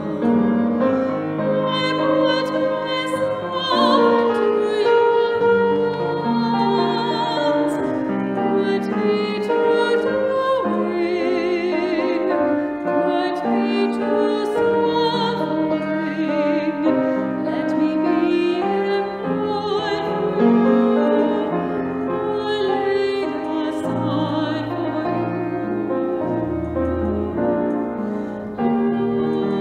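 A hymn sung with a strong vibrato over piano accompaniment, the melody moving steadily from note to note.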